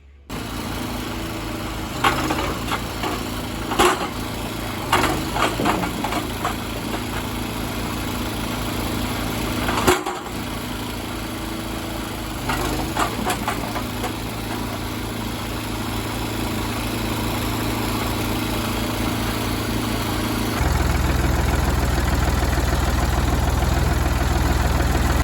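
Engine running steadily, with several sharp knocks and bangs over the first half. About twenty seconds in it turns louder and deeper.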